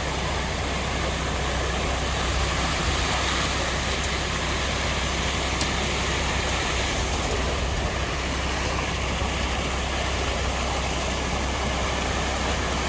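Concrete truck engine running steadily, a low even rumble with a constant noise over it, with one brief click about five and a half seconds in.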